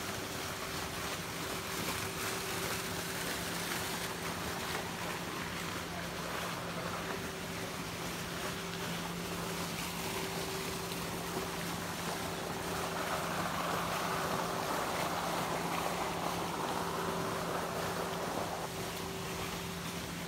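Steady low machine hum under an even outdoor hiss; a louder rushing sound swells past the middle and dies away a couple of seconds before the end.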